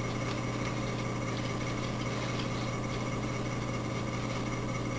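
Steady low hum with a faint higher whine above it, unchanging and with no sudden sounds.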